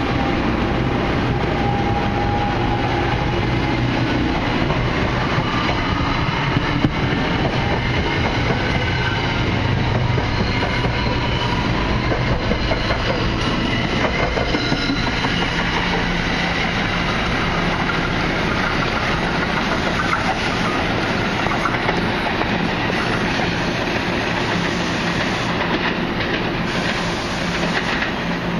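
NJ Transit Arrow III electric multiple-unit train accelerating away past the platform, its wheels running loudly over the rails, with a faint electric motor whine climbing slowly in pitch.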